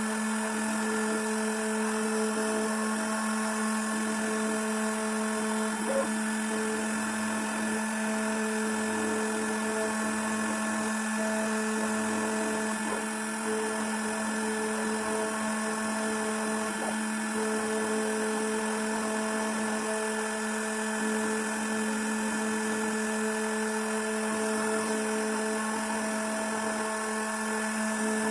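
Small CNC router spindle running at a steady speed with a constant whine as it mills a copper-clad PCB, with one faint click about six seconds in.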